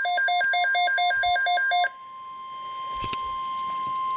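Midland WR-100 weather radio sounding its alert: a loud, rapid pulsing beep that cuts off about two seconds in. Then comes the steady single-pitch NOAA Weather Radio warning alarm tone, which signals an incoming weather alert. It holds to the end and grows slightly louder.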